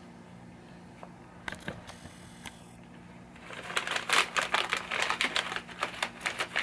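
Nylon zip tie being fastened around a wire harness: a few scattered clicks, then, from a little past halfway, a few seconds of rapid ratcheting clicks as the tie is pulled tight.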